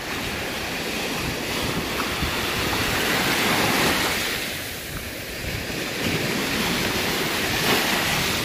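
Sea surf washing up a sand and pebble beach in two swells, one peaking about four seconds in and another near the end.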